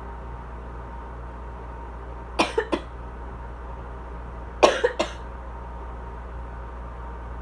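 Asthmatic coughing: two short fits of about three coughs each, roughly two seconds apart. A steady air-conditioner hum runs underneath.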